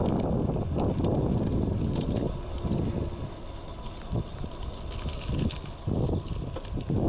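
Wind buffeting a chest-mounted action camera's microphone while riding a road bike: a gusty rumble that eases off about two and a half seconds in, then comes back in surges.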